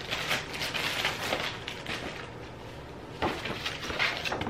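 Plastic packaging rustling and crinkling as it is handled and opened, with a couple of louder rustles near the end.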